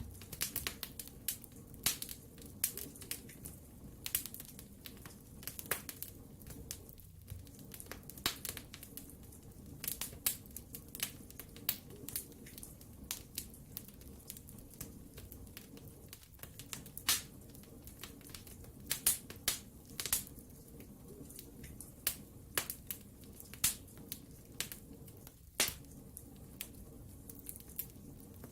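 Wood fire crackling in a fireplace: irregular sharp pops and snaps, a few at a time, over a low steady rush of flame.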